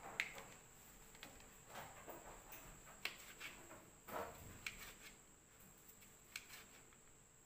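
Kitchen knife slicing a block of tempeh on a plastic cutting board: faint, irregular taps as the blade goes through and meets the board, about eight in all.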